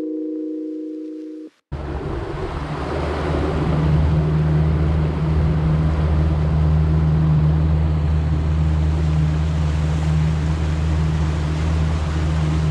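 A held chime-like tone stops abruptly about a second and a half in. Then a boat's engine drones steadily under a loud rush of wind and water.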